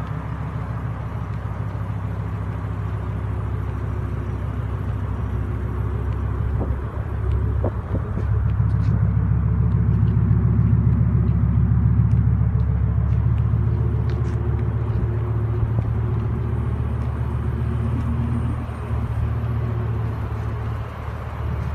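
2008 BMW M6's V10 engine idling through its quad-tailpipe exhaust, a steady low rumble at an even pitch. It grows louder for several seconds from about eight seconds in, near the tailpipes, then eases back.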